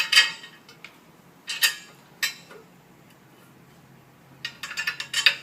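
Table leg and its bolt hardware clinking and tapping as they are fitted together in the base: a sharp clank at the start, two more at about a second and a half and just after two seconds, then a quick run of small ticks near the end.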